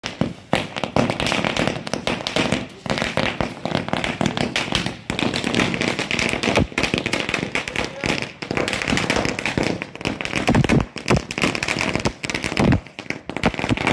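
A string of firecrackers going off: dense, rapid crackling pops with no let-up, and a couple of heavier bangs near the end.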